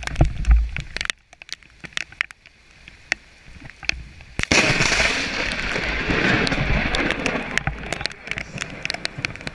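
A close lightning strike: a sudden sharp crack about four and a half seconds in, followed by loud crackling thunder that runs on for several seconds. Small knocks and taps are heard throughout.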